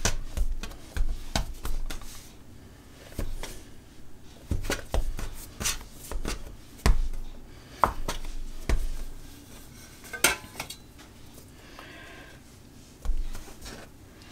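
Stainless-steel bench scraper cutting through bread dough and knocking on a wooden worktop: a string of irregular sharp clacks that thins out after about ten seconds.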